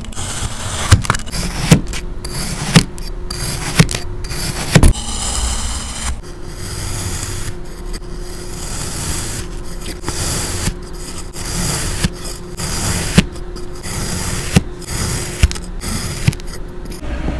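Metal blade slicing through kinetic sand: a soft, gritty crunch and scrape with each cut, and a sharp tap of the blade on the surface below, about once a second at times.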